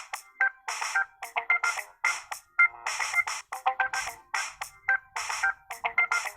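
Background electronic music: a repeating beat with short, high, ringtone-like melody notes.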